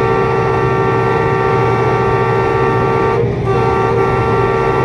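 Air horn of a ZCU-20 diesel-electric locomotive sounding two long blasts, the first about three seconds, then a short break before the second, over the steady running of the locomotive's diesel engine.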